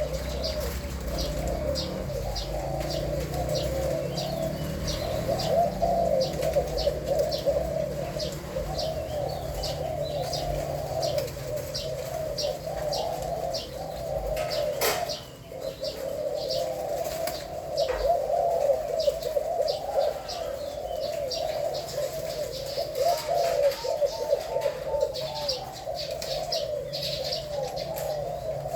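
Zebra doves cooing without pause, a continuous rolling chorus of coos, with rapid high chirps over it and a single sharp click about halfway through.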